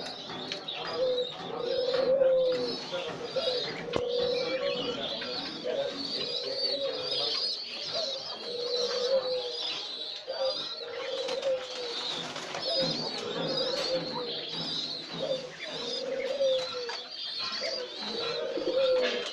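Domestic pigeons cooing, a low coo repeating every second or so, over continuous high twittering from small caged birds.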